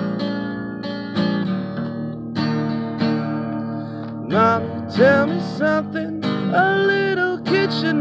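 Acoustic guitar strummed steadily. About halfway through, a voice starts singing over it.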